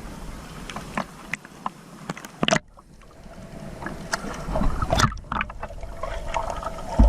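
Sea water sloshing and splashing around people in the water, with scattered short splashes. The sound cuts off sharply about two and a half seconds in, then comes back with a low rumble building under the splashing.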